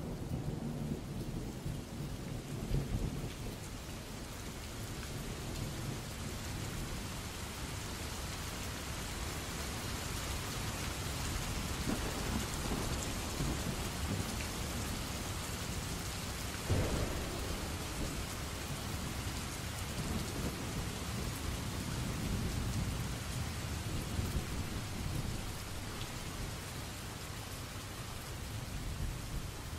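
Steady rain with low rolls of thunder and one sharper, louder thunderclap a little past the middle.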